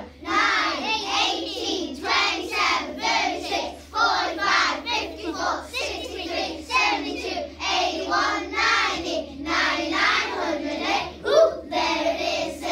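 A class of young children singing a counting song together in a steady rhythm, running through the multiples of nine.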